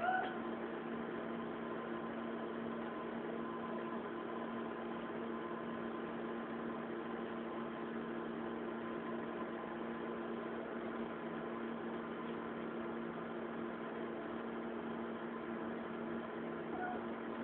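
Steady machine hum with a few fixed tones that holds level throughout. A brief high-pitched chirp sounds at the very start, and a fainter one near the end.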